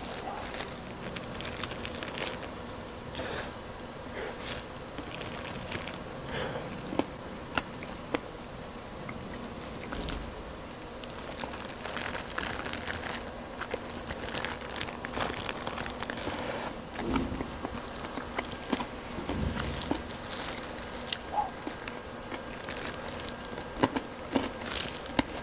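Close-up eating of fried chicken: crunchy bites and chewing, with the crinkle of disposable plastic gloves as the pieces are torn apart, over a faint steady hum.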